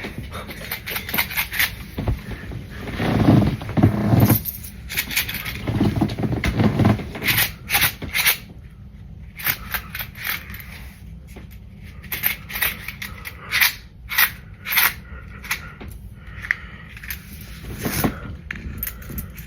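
Pennies clinking and scraping against each other as they are counted by hand: an irregular run of small sharp clicks. Two duller, lower bursts come about three and six seconds in.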